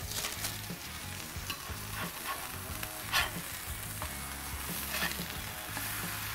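Thin beef burger patties sizzling steadily on a hot griddle. A metal spatula scrapes and clacks against the griddle several times as they are flipped, the loudest scrape about three seconds in.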